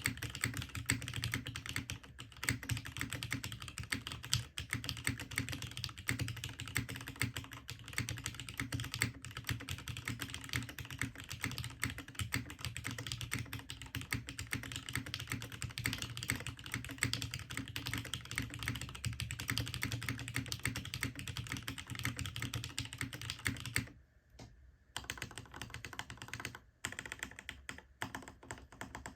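Fast, continuous typing on a Hineybush HBCP mechanical keyboard with a coated brass top-mount case, a full FR4 plate, lubed and filmed Cherry MX Retooled Black linear switches and GMK keycaps. Near the end the typing stops for about a second, then resumes with sparser keystrokes.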